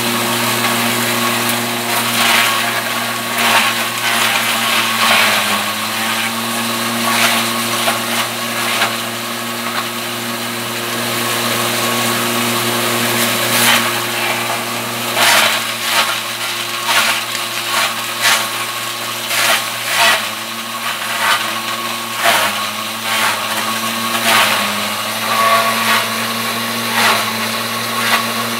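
Small electric forage shredder running with a steady hum while cassava stems are fed into it and chopped, with frequent sharp cracking and crunching. Its pitch sags briefly a few times as the stems load the motor.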